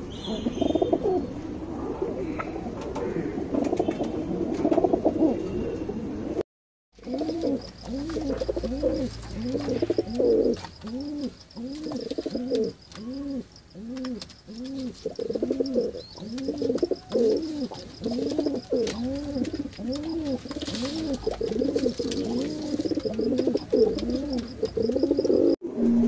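Domestic pigeons cooing: a long, even run of coos that rise and fall in pitch, about one and a half a second, after a brief break about six seconds in.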